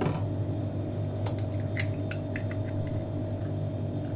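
Raw eggshell being cracked open and pulled apart by hand: a light knock at the start, then a short run of small crackling clicks about a second and a half in as the shell breaks open, over a steady low hum.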